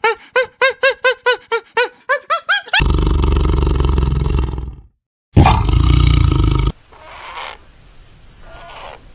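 Animal calls: a quick run of short, pitched cries, about four a second, then two loud, harsh roars.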